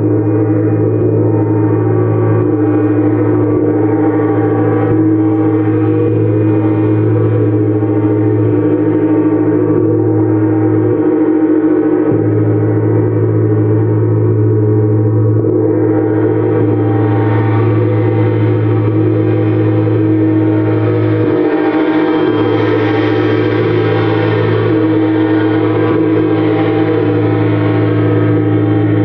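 A gong played continuously in a sound-healing session, making an unbroken wash of sustained, overlapping tones over a strong low hum. It grows brighter and fuller about halfway through.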